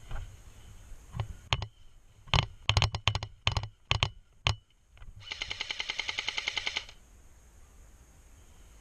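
Airsoft guns firing: a string of separate single shots, then a rapid full-auto burst lasting under two seconds.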